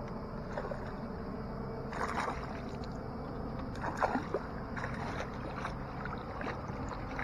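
Water splashing and sloshing against a canoe as a hooked northern pike is played and landed, with a few brief louder splashes along the way.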